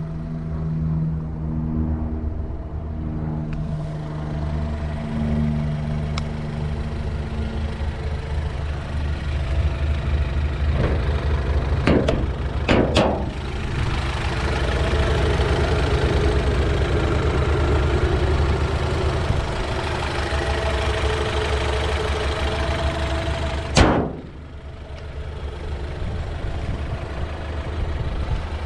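Alfa Romeo Giulietta 1.75 TBi turbocharged four-cylinder petrol engine idling, louder through the middle stretch. A single sharp bang comes about three-quarters of the way through, after which the idle sounds quieter.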